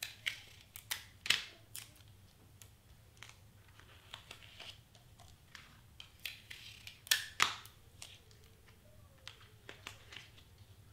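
Hands handling cardstock and tape: scattered small clicks, taps and brief scrapes and rustles as paper pieces are taped down. The loudest scrapes come about a second in and again around seven seconds in.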